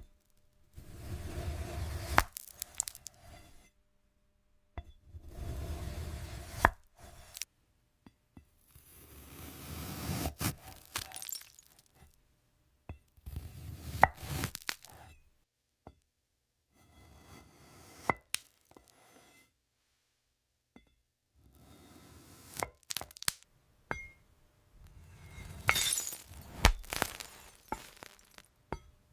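Glassy strawberries crunching and cracking in about seven separate bursts, each a second or a few long, with sharp snaps and clinks inside them and short silent gaps between.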